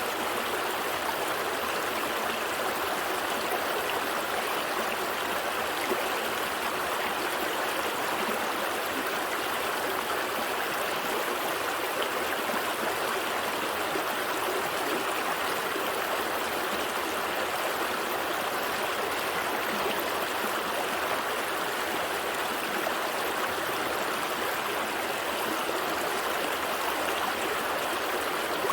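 A gentle stream flowing steadily over rocks, a constant burbling rush of water with no change throughout.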